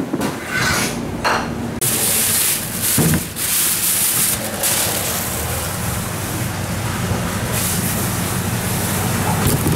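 Plastic bag crinkling and rustling as rockfish are tipped out of it into a plastic colander, with a single knock about three seconds in. A steady background noise follows.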